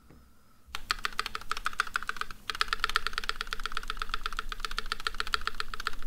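Fast typing on a mechanical keyboard fitted with lubed NovelKeys Cream linear switches on 65 g springs: a dense run of key clacks that starts under a second in, with a short pause about two and a half seconds in.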